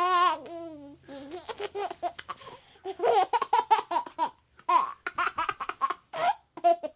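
A baby laughing in quick repeated giggles, high-pitched and breathy, in several runs with short pauses between them.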